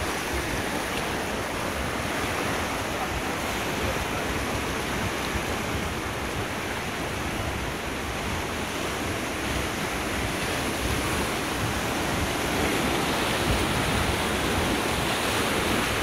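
Steady rushing of whitewater rapids around an inflatable raft, with a low rumble of wind on the microphone.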